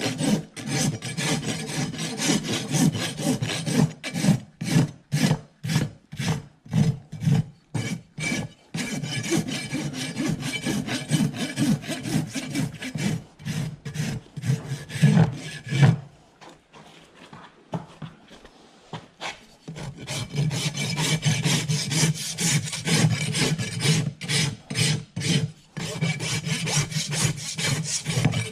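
Farrier's rasp scraping back and forth across a horse's hoof wall in repeated strokes, for a while about two a second. There is a pause of about four seconds past the middle, then the rasping resumes.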